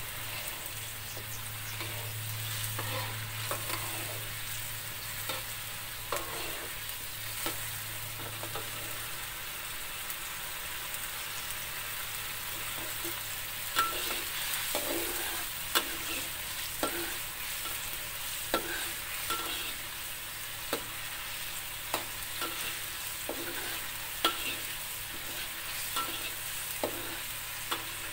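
Ground spice paste sizzling as it fries in oil in a metal wok, with a metal spatula stirring through it, scraping and clicking against the pan every second or so.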